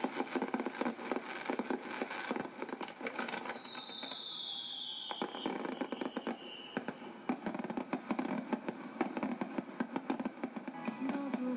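Starmine fireworks barrage: rapid crackling and popping of bursting shells, with one falling whistle from about three to seven seconds in, heard through a television speaker.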